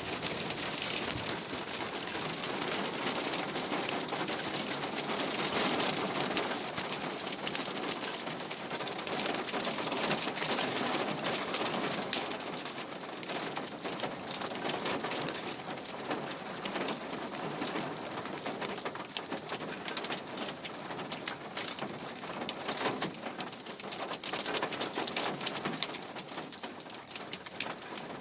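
Heavy thunderstorm rain pouring down steadily, countless drops pattering on surfaces, a little heavier in the first third.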